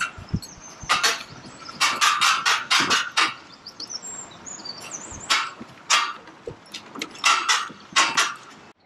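Footsteps knocking and clattering on the wooden plank deck of a suspension footbridge, irregular, several a second, with faint bird chirps in the first half. The sound cuts off suddenly near the end.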